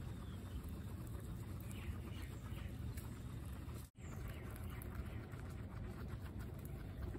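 Guinea pigs munching fresh grass, small crisp chewing and rustling clicks over a steady low rumble, with a few faint high chirps in the first half. The sound drops out briefly about four seconds in.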